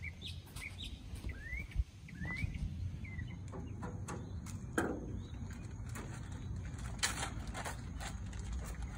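Songbirds chirping with short rising calls for the first few seconds. Then a string of sharp clicks and clacks as metal tongs set chicken wings down on the grill grates, over a steady low rumble.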